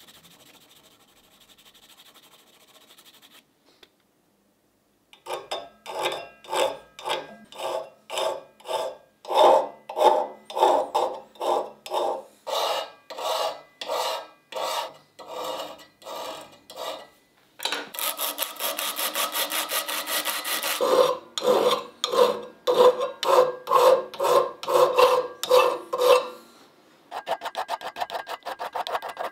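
A pencil rubs lightly over paper laid on a stamped steel part. After a short pause, hand files rasp back and forth on the steel part clamped in a vise, in steady strokes of about two a second. A stretch of faster, denser strokes comes partway through, and quicker, lighter strokes come near the end.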